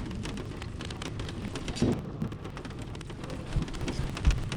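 Water dripping and pattering, a dense run of small ticks over a low rumble, with a few dull thumps.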